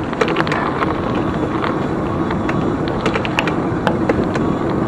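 Mountain bike being ridden: steady wind and tyre noise, with frequent clicks and rattles from the bike.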